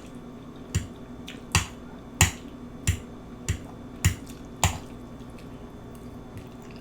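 Close-miked mouth smacks while chewing food: a run of sharp, wet smacks about every two-thirds of a second, which stop about two-thirds of the way through.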